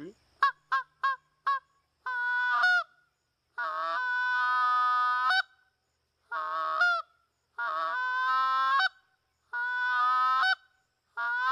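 Short-reed Canada goose call blown by mouth: four short toots, then six longer honking notes, the longest held nearly two seconds, each ending with a quick upward flick in pitch as the reed breaks into the higher octave. These are practice notes with a drawn-out low start; shortened, they become real calls.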